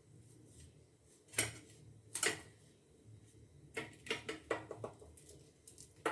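A series of light knocks and clicks, as of household objects being handled and set down: two single knocks, then a quick cluster of clatters about four seconds in, and another sharp knock near the end.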